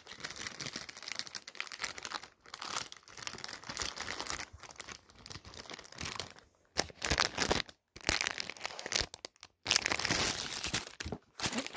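Clear plastic wrapping on a pack of craft paper crinkling and being torn open by hand, in irregular bursts with brief pauses.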